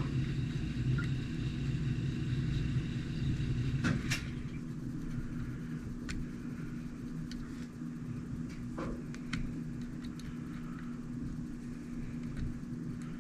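A steady low mechanical hum with a few steady tones, a little louder for the first few seconds. A handful of light clicks and taps of small parts being handled sound over it.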